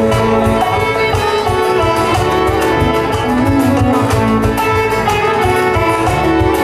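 Live acoustic folk band playing an instrumental passage: a fiddle bowing a melody over a strummed guitar and a steady low rhythmic pulse.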